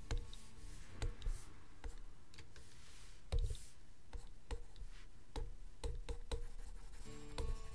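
Irregular light clicks and taps from a pen stylus on a drawing tablet, with a few short soft scratchy strokes. Concertina background music comes back in near the end.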